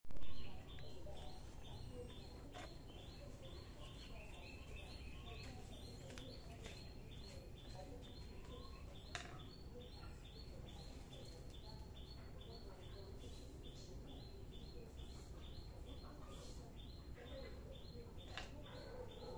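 High-pitched chirping, repeated evenly about three times a second, over a steady low background hum. A brief loud sound comes at the very start, and a single sharp click about nine seconds in.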